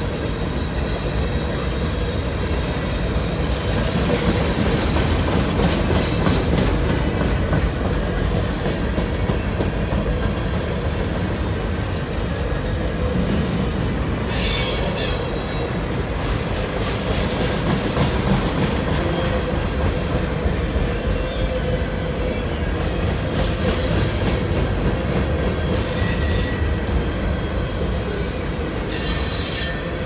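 Freight train cars rolling steadily past, a continuous low rumble of wheels on rail. Brief high-pitched wheel squeals cut in now and then, the loudest about halfway through and another near the end.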